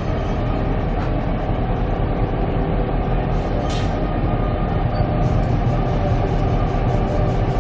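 Diesel locomotive engine running steadily with a deep rumble and a steady hum, with one short hiss of air partway through.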